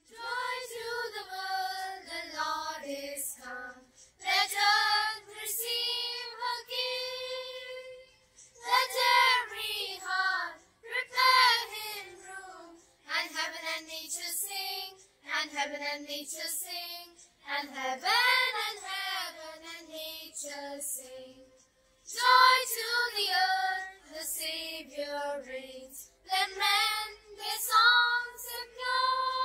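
A child singing a song solo, in sung phrases with short breaks between them.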